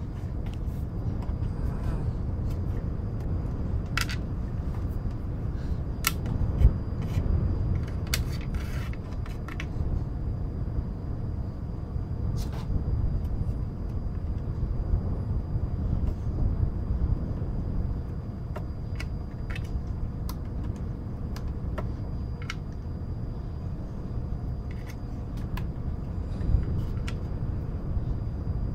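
A steady, low wind-like rumble of background noise, with irregular light clicks and taps of cardboard jigsaw puzzle pieces being handled and sorted.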